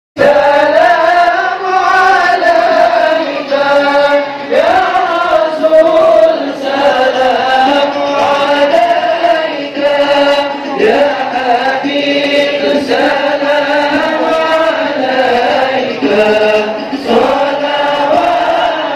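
Many voices singing a slow, melodic devotional chant in unison, the Maulid praise of the Prophet Muhammad (shalawat), held in long, gliding phrases without a break.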